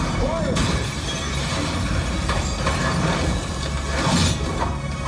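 Film soundtrack excerpt: a dense mix of music and sound effects, with a sudden crash a little over half a second in.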